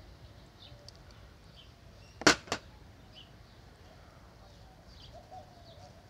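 Two sharp knocks about a quarter second apart: the charger's power cord being set down on the table, its plug striking the surface. Birds chirp faintly in the background.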